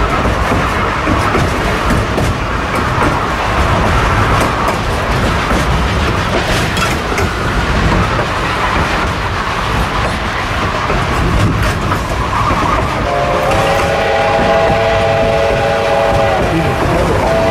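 Narrow-gauge train running along the track, its wheels rumbling and clattering on the rails. About thirteen seconds in, the steam locomotive's whistle sounds a long chord of several tones for about three seconds, and starts again right at the end.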